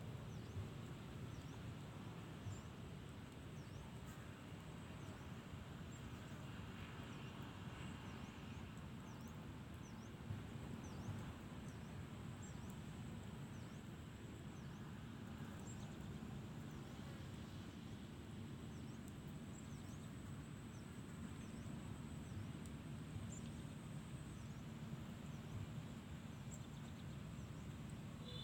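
Quiet outdoor ambience: a steady low rumble with faint high chirps repeating about once a second and a thin steady high whine.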